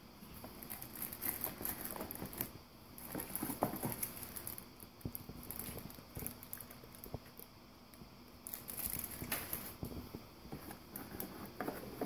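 Plastic packaging crinkling and rustling as it is handled in a cardboard box, in irregular bursts with small knocks.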